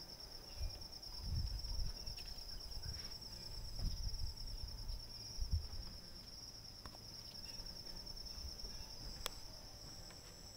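Crickets trilling steadily in a high continuous chorus, with low rumbles and bumps of camera handling in the first half and a sharp click near the end.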